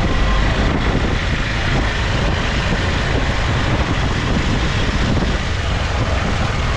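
Motorcycle on the move: steady wind rushing over the microphone with engine and road rumble underneath.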